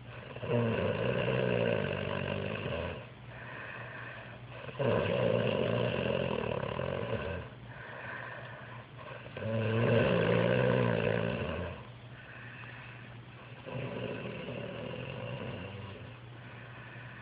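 A man snoring in his sleep: loud snores about every four and a half seconds, the fourth one softer, with quieter breathing between.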